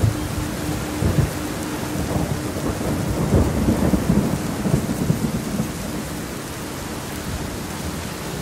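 Steady rain with low rolling thunder, the rumble swelling to its loudest around the middle and easing off toward the end.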